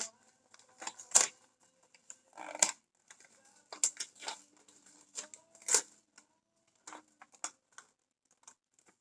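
Gift packaging being unwrapped and handled: a run of irregular crinkles and clicks.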